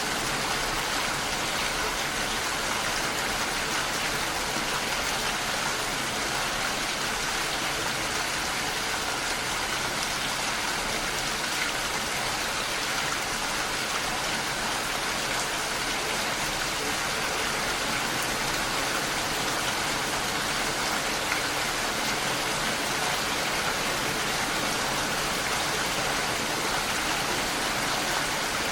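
Steady, gentle rain falling, a continuous even hiss of drops with no breaks or changes.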